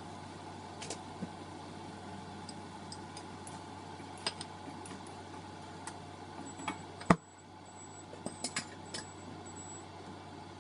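Kitchen cooking sounds: a steady hiss and hum with light clicks of a utensil against the pan. One sharp loud click comes about seven seconds in, after which the hiss briefly drops.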